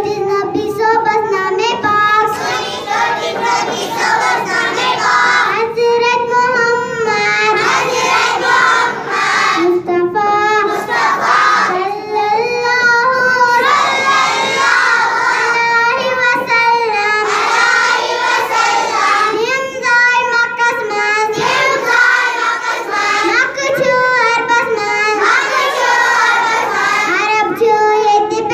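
A young child singing solo into a microphone, with long held notes that waver in pitch and short breaks for breath.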